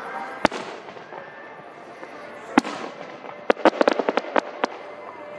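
Aerial fireworks bursting: two loud single bangs about two seconds apart, each with a short fading tail. Near the end comes a quick run of about ten sharp cracks.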